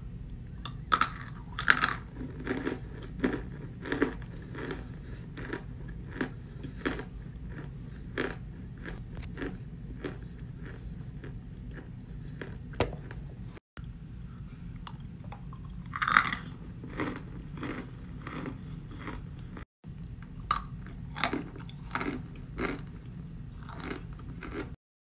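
A person biting and chewing chunks of cornstarch: irregular crisp crunches with a few louder bites, over a low steady hum.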